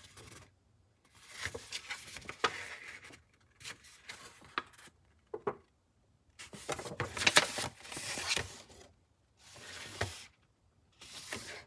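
Paper rustling and rubbing as a quick start guide is handled, in short irregular bouts with gaps between them and a few sharp clicks.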